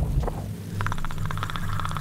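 Low rumbling drone, joined under a second in by a rapid clicking rattle: the Predator creature's clicking call.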